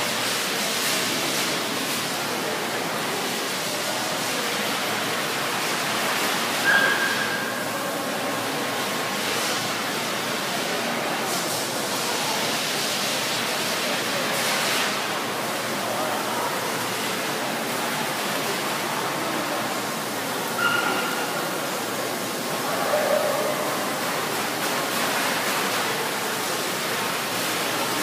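Steady noisy hum of a large indoor show hall with faint crowd chatter. There are a few short high-pitched squeaks or yelps, about seven seconds in and again around twenty-one and twenty-three seconds in.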